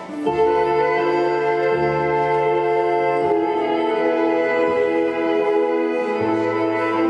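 Slow instrumental music of long held notes, the chords changing every second or two; a new chord swells in just after the start.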